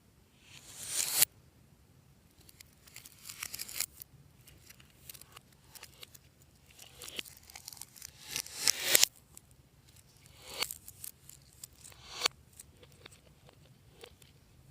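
Fluffy slime being stretched and pulled apart: a crackling, tearing sound that builds and then cuts off sharply, about five times, loudest in the middle.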